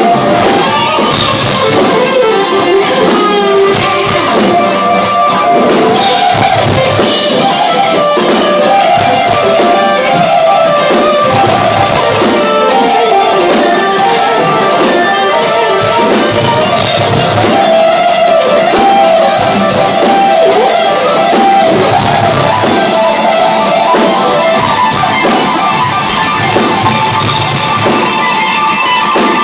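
Live rock band playing an instrumental, with a lead electric guitar carrying the melody over bass and drums.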